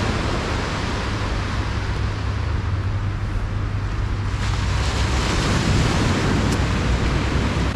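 Small waves breaking and washing up a sandy beach, with wind buffeting the microphone as a steady low rumble. The wash of the surf swells louder about four seconds in.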